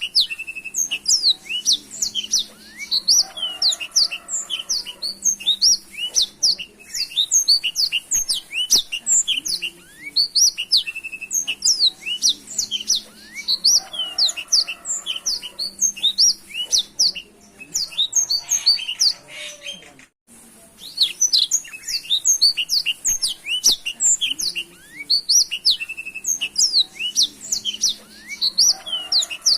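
Black-throated canary (blackthroat) singing a long, rapid song of high chirps, trills and quick up-and-down notes without pause, broken only by a brief gap about twenty seconds in.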